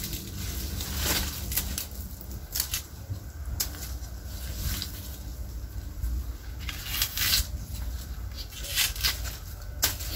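Iris leaves rustling and crackling as they are gripped and worked by hand, in a series of short, sharp bursts over a low steady rumble.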